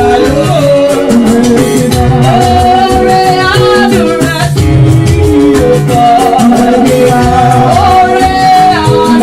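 Church praise music: voices singing over a band with a steady beat and rattle-like percussion.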